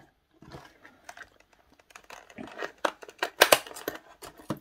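Rustling, scraping and small clicks of dart flights and shafts being handled and pulled out of the foam insert of a darts case, with the loudest scrapes a little after three seconds in.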